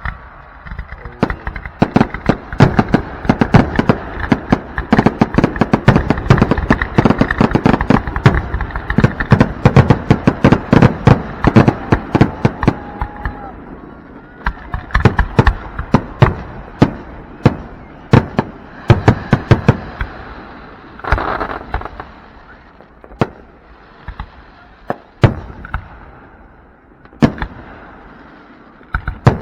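Aerial fireworks exploding: a dense, rapid barrage of bangs for about the first half, then fewer, more widely spaced bangs with crackling in between.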